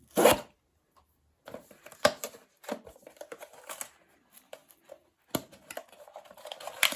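Blind-box packaging being handled and opened: a short loud rustle at the start, then scattered clicks, tearing and crinkling of cardboard and plastic.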